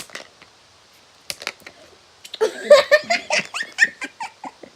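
A few sharp clicks, then, from about two seconds in, girls laughing hard.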